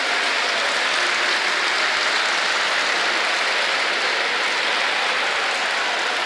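Crowd of spectators applauding steadily, a dense, even clapping that holds at the same level throughout.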